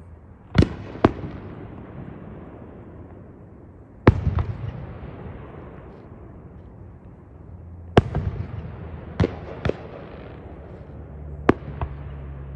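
Fireworks going off: about nine sharp bangs at irregular intervals, some in quick pairs, each trailing off in a short echo, the loudest about four seconds in. A low steady hum runs underneath.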